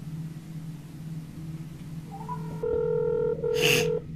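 Smartphone on speaker placing a call: steady electronic call tones start about halfway in, one held for over a second, with a short noisy burst near the end. A low steady hum runs underneath.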